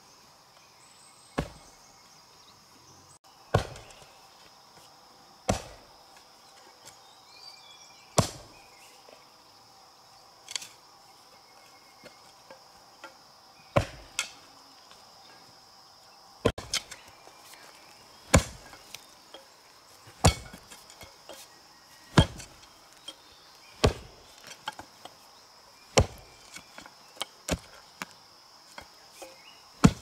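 A digging tool striking into soil again and again as a planting hole is dug, about one blow every two seconds, coming quicker near the end. Insects keep up a steady high drone throughout.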